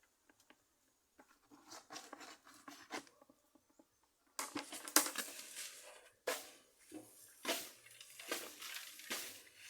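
Chopped elephant grass and rice bran being handled and mixed in a container, rustling and scraping. It starts as scattered faint clicks and rustles, then grows louder about four seconds in, with repeated scraping strokes about once a second.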